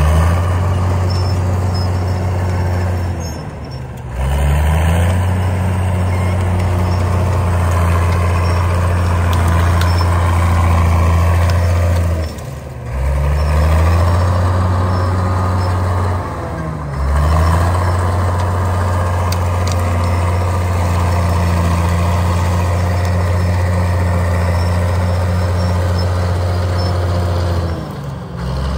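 Caterpillar D5 bulldozer's diesel engine running hard while the dozer pushes brush. The engine note sags and picks back up four times, about four, thirteen, seventeen and twenty-eight seconds in.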